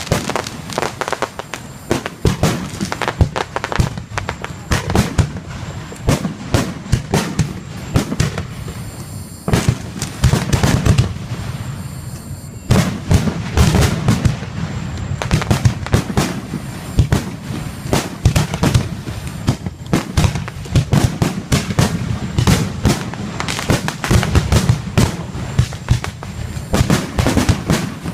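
Fireworks display: a rapid, irregular run of bangs and crackles, many overlapping, going on throughout.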